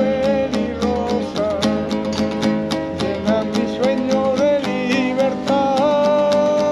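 Acoustic guitar strummed quickly in a Spanish style, accompanying a Spanish-language song, with a held melody line wavering over it.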